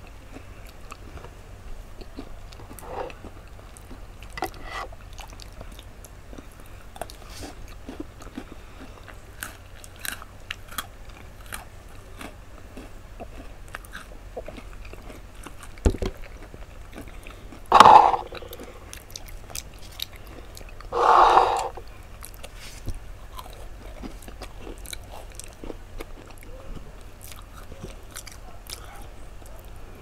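Close-miked chewing and crunching of Oreo cookies, with many small crunches and mouth clicks. About halfway there is a short low thump, followed by two louder, longer mouth sounds a few seconds apart.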